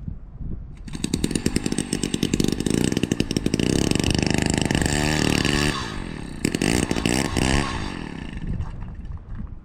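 Powered ice auger running as it drills a hole through lake ice. It starts about a second in, runs with its pitch rising and falling under load, and winds down near the end.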